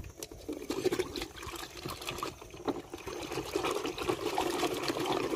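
Water sloshing and splashing in a metal basin as a hand stirs washing powder into it, growing louder as the stirring picks up.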